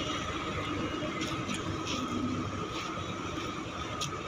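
Steady machinery hum with a constant high-pitched whine from the docked passenger ship KM Tidar, her auxiliary machinery running alongside the quay. A few short clicks sound over it.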